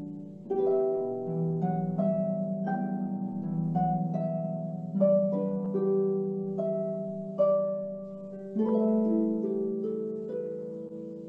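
Concert harp played solo: an unhurried melody of plucked notes that ring on and fade over low held bass notes, with louder chords struck several times.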